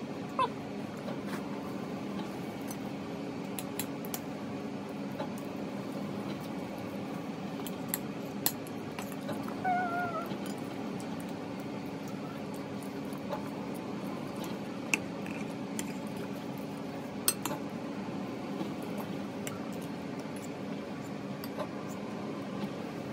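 A few sharp clicks of a small plastic fork against a salad bowl, over a steady low room hum, with a short wavering squeal from the baby about ten seconds in.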